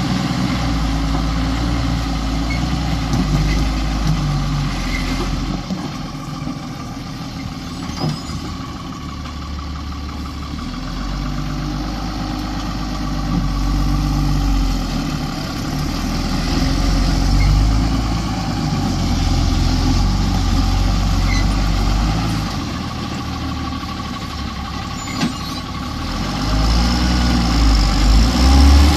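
A JCB 3DX backhoe loader's diesel engine running under work, its revs rising and falling again and again as it digs and loads. There are sharp clanks once about eight seconds in and again about 25 seconds in.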